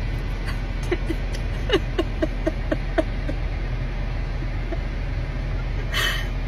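A woman crying in a quick run of short, breathy sobs, clustered about a second to three seconds in, over the steady low hum of a car cabin.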